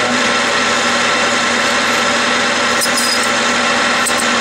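Clausing metal lathe running steadily with its spindle turning, a constant mechanical drone and hum. A few light, high clicks sound about three seconds in and again near the end.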